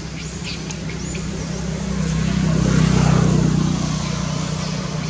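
A motor vehicle passing on a nearby road: a low engine and road hum that swells to a peak about three seconds in and then fades. A few faint high chirps sound within the first second.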